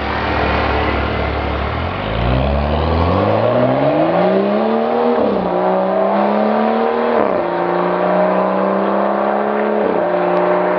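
BMW F10 535i's turbocharged inline-six running through a custom mid and rear exhaust with vacuum-valve control, accelerating. The pitch climbs, then steps down at upshifts about 5, 7 and 10 seconds in.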